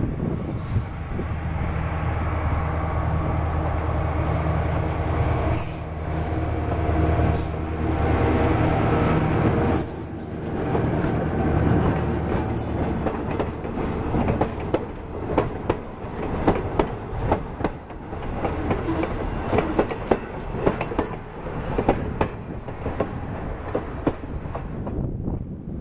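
A diesel locomotive passing close by, its engine running with a steady low drone. From about ten seconds in, cabooses and freight cars roll past with their wheels clicking over the rail joints, and a faint high wheel squeal comes in around the middle.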